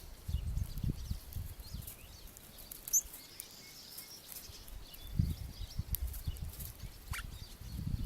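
Songbirds giving scattered short chirps and calls, one falling call near the end, with low rumbles of wind on the microphone about a second in and again about five seconds in.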